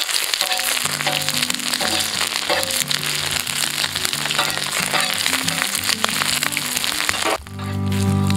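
Banana-leaf parcels of spiced chicken liver sizzling and crackling in oil on a hot pan, under background music. The sizzling cuts off suddenly about seven seconds in while the music carries on.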